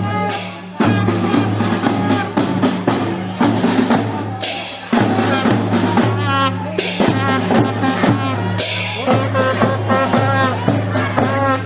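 Song with a drum-kit beat and a singing voice, with a cymbal crash about every four seconds.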